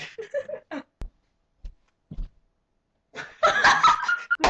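Young women's voices: a few short vocal sounds, a sharp knock about a second in, then a loud, shrill vocal outburst from about three seconds in that runs into laughter.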